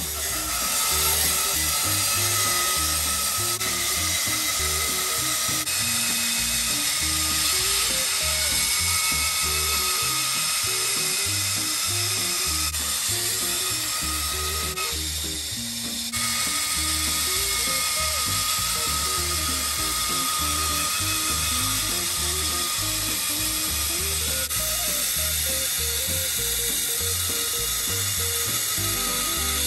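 Makita LB1200F band saw running at speed and ripping through solid timber, a steady cutting noise with background music and a bass line under it. The sound dips briefly about halfway through, then the cutting resumes.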